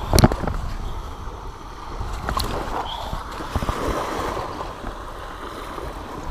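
Small waves washing up on a sandy shore, with a low wind rumble on the microphone. A few sharp thumps and knocks from handling at the water's edge, the loudest about a quarter second in.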